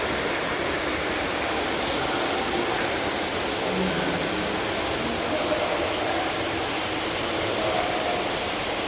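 Steady rushing, churning water of a spa jacuzzi and pool, an even hiss with no breaks.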